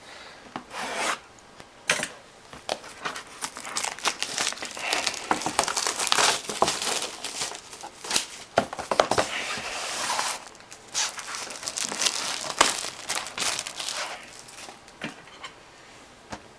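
Plastic shrink wrap being torn and crumpled off a sealed trading-card box, a run of irregular crinkling and tearing with sharp crackles.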